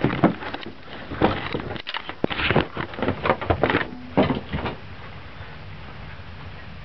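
Camera being handled and set down on the ground: a run of irregular knocks, clunks and rustles that stops about five seconds in, leaving a quieter steady background.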